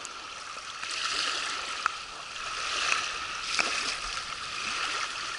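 Small wind-driven waves lapping on a gravel shore, washing in and out in swells every second or two, with a few faint clicks.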